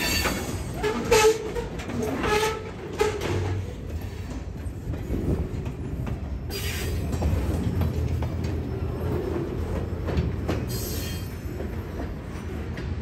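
Freight train of covered hopper cars rolling slowly past over rough, uneven track: steel wheels clanking and squealing with knocks in the first few seconds, then a steadier low rumble with occasional knocks as the last cars go by.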